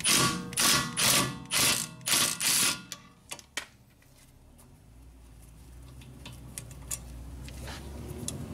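Cordless Milwaukee M18 Fuel impact wrench hammering in about six short trigger bursts over the first three seconds, backing out a 12 mm brake caliper bolt. A couple of light metal clicks follow, then quiet handling.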